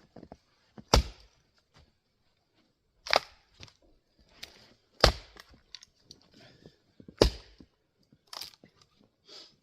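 Axe blows splitting grand fir rounds: four loud, sharp cracks about two seconds apart, then two softer knocks near the end.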